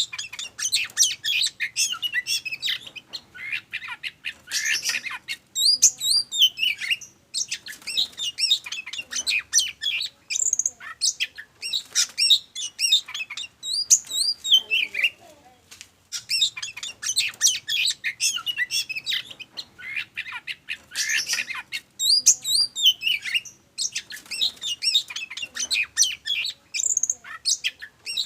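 Oriental magpie-robin (kacer) in full song: fast, varied runs of high whistles, trills and chatter in bouts a few seconds long, broken by short pauses. The same phrases come back about every 16 seconds.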